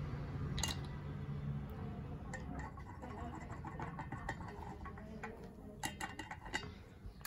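Small irregular clicks and taps of a plastic measuring cup and silicone spatula against a stainless steel bowl as oil is poured in and scraped out of the cup, with a sharper knock early on and a cluster of louder taps near the end. A low hum runs under the first second and a half.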